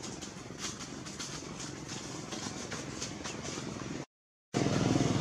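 Outdoor background noise: a steady low rumble with scattered faint ticks, cutting out completely for about half a second near the end and coming back louder.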